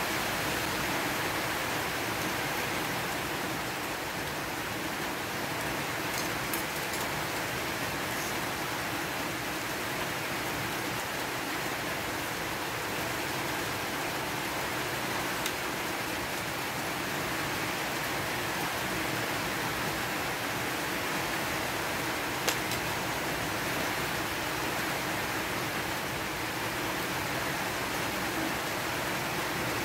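A steady, even hiss with a few faint clinks of a spoon and fork against a plate.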